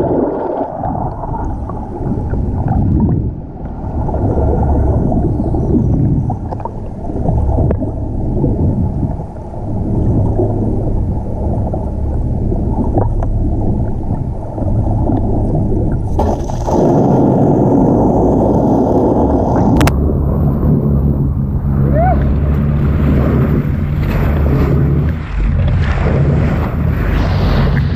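Boat engine running under rushing water and wind on the microphone, with a steady low engine hum coming through more clearly from about halfway in.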